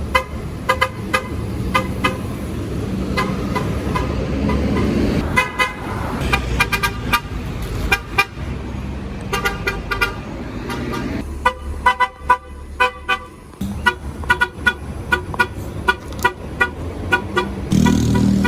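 MTA city bus horn sounded in many short, quick toots one after another, over the low rumble of the bus's engine.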